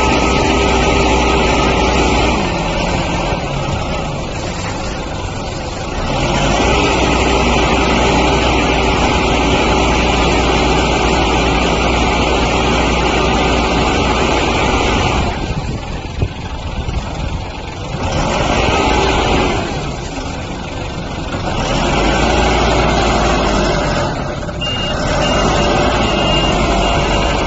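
Diesel engine of a self-loading concrete mixer truck running, growing louder and easing off several times as it works. A short run of high beeps, like a reversing alarm, sounds near the end.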